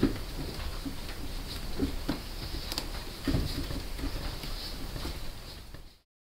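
Hands pressing and patting soft clay onto a board, building it out around a plate: a run of soft, irregular thuds and small taps.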